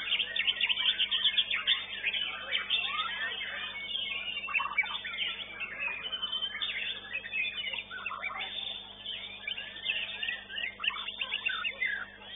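Caged contest songbirds singing: a dense, unbroken run of rapid chirps, whistles and trills.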